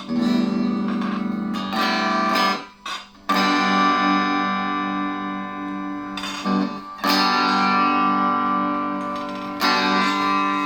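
1985 Made-in-Japan Fender Performer electric guitar played through a Peavey Valve King Royal 8 tube amp. Chords are struck and left ringing, with a new strum every second or two and a short muted gap about three seconds in.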